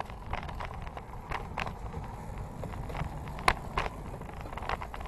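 Bicycle being ridden, heard from the handlebars: a steady low rumble with irregular clicks and rattles, the loudest about three and a half seconds in.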